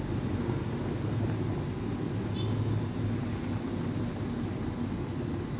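Opened outdoor unit of a Panasonic 1 PK split air conditioner running with a steady low hum and air noise from its condenser fan, while the jammed compressor fails to start.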